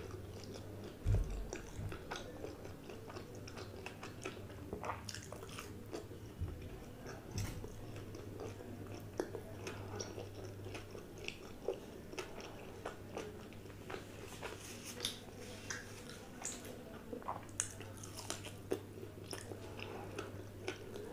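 Close-miked chewing and biting of food, crunchy fried pakoras and soft rice, with many short crisp crunches and wet mouth clicks over a faint steady low hum.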